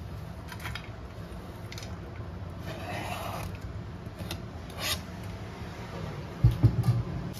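Chopped sweet potato leaves scraped off a plastic cutting board into a stainless steel bowl: a short rustling swish about three seconds in, with a few light clicks of the board against the bowl. Near the end come several dull, low thumps. A steady low hum runs underneath.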